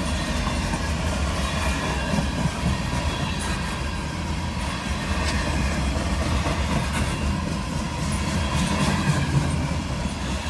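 Two GE Dash 9 diesel locomotives heading a freight train rumble steadily as it approaches, with faint clicking from the wheels on the rails.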